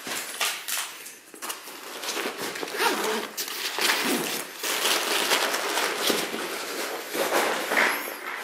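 Irregular rustling, scuffing and crinkling handling noises: a run of short rough sounds with no steady tone.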